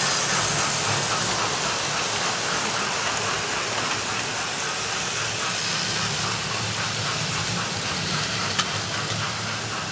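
Several model trains running round a layout: a steady rumbling hiss of wheels on track and motors, with a low hum and a single click near the end.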